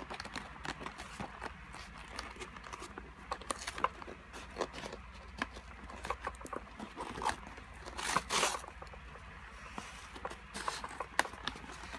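Hands opening and handling a wallet's packaging: scattered clicks, taps and rustles, with a longer tearing or scraping noise about eight seconds in.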